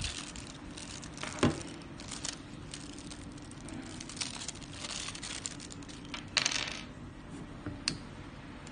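Small plastic bag crinkling and little metal inflation adapters clicking together as they are handled, with a sharp click about one and a half seconds in and a longer crinkle a little after six seconds.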